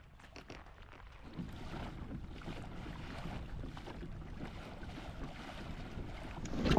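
Steady wind and lapping water noise, growing slowly louder after about a second, with a few faint clicks near the start.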